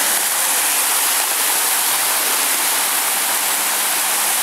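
Waterfall rushing steadily, a constant even hiss of falling water.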